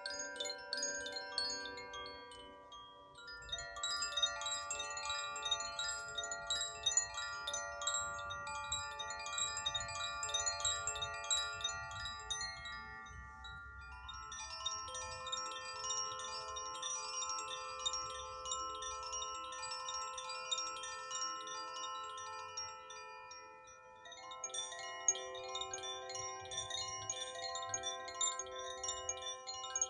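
Koshi chimes swirled by hand: dense tinkling clusters of bright, sustained ringing notes. A fresh swell of notes starts about 3, 14 and 24 seconds in, each with its own set of pitches.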